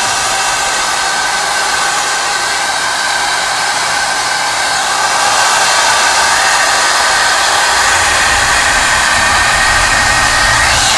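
Water jets spraying from a rug-washing machine's PVC spray pipe onto a flooded wool rug, a steady loud rush with faint steady tones from the machine running underneath. A low rumble joins about eight seconds in.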